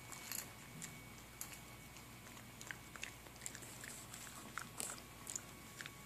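A puppy chewing dry kibble from a metal bowl: faint, irregular crunches, about a dozen of them.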